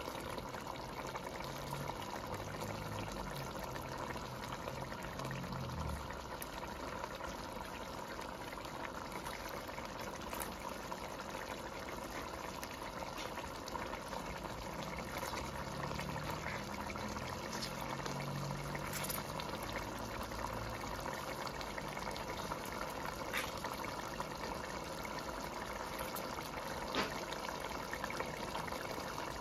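Pot of mackerel stew simmering on a gas stove: a steady bubbling hiss, with a few faint clicks in the second half.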